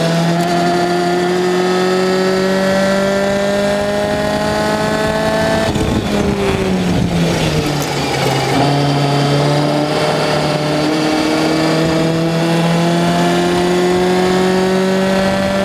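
Lotus Seven-style race car engine heard from on board under hard acceleration, its note climbing steadily. About six seconds in the driver lifts off and the note falls with a rough, unsettled patch through the corner, then it picks up and climbs steadily again under full throttle.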